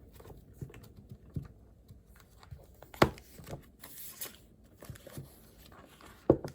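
Desk-study handling sounds: scattered light taps and clicks with a brief rustle of paper, and two louder knocks on the desk, one near the middle and one near the end.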